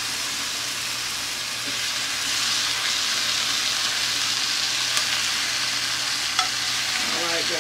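Chicken drumsticks sizzling in oil and curry powder in a hot cast-iron skillet: a steady frying hiss that grows a little louder about two seconds in, with two light clicks of metal tongs and spoon against the pan.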